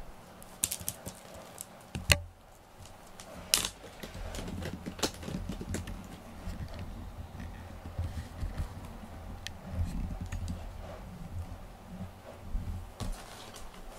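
Scattered sharp clicks and taps, the loudest about two and three and a half seconds in, over a low steady hum that comes in about four seconds in.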